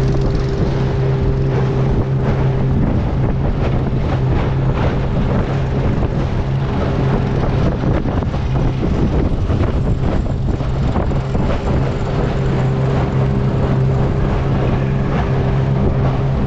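Boat engine running at a steady, even drone, with wind rushing over the microphone.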